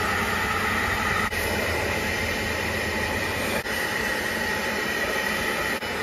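Bissell portable carpet extractor running with its suction on, a steady motor whine over rushing air through the hand tool as it is pulled across a carpet floor mat. The sound dips briefly three times: about a second in, midway and near the end.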